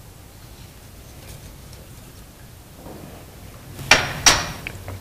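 Two sharp clinks of kitchenware knocking together, about half a second apart near the end, over a faint low hum.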